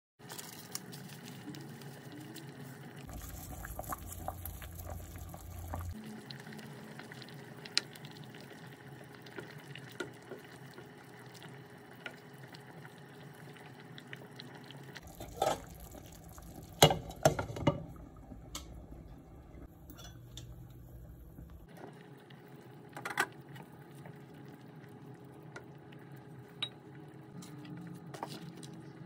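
Pot of sinigang soup simmering on the stove, a steady bubbling, with scattered sharp clicks and a cluster of louder clicks a little past the middle.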